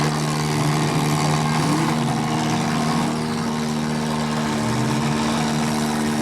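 Several V8 engines of demolition derby cars running together at steady speed, one briefly revving up about a second and a half in.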